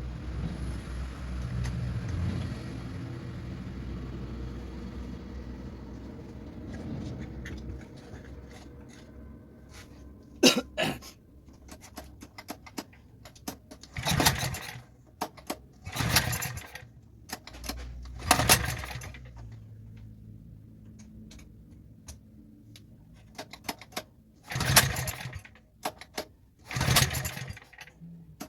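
Cement mixer's electric motor running with a steady low hum, which fades after about seven seconds. Then come about seven short, loud bursts of noise a second or two apart.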